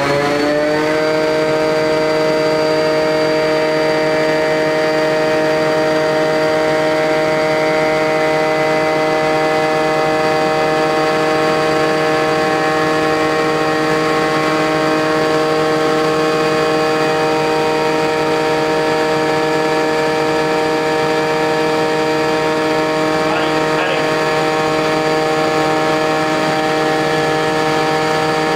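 Wadkin Bursgreen UO2 thickness planer, driven through a variable frequency drive, finishing its spin-up with a rising whine that levels off about a second in, then running steadily at full speed with a strong, even whine.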